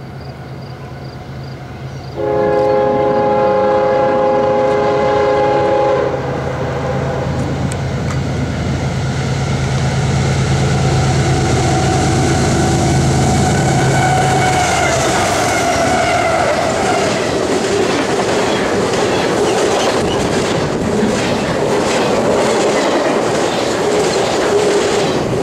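CSX diesel freight locomotive blowing its multi-chime air horn in one long blast of about four seconds, starting about two seconds in, with its engine running as it passes close. After that a long double-stack container train rolls by, wheels clacking over the rail joints.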